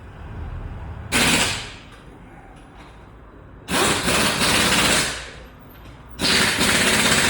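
Pneumatic impact wrench rattling in three bursts: a short one about a second in, then two longer ones of a second and a half to two seconds.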